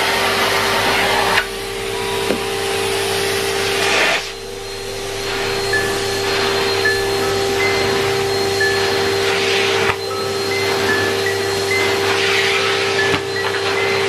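Numatic Henry canister vacuum cleaner running: a steady motor hum under rushing airflow that changes in strength as the floor tool is pushed and lifted on carpet.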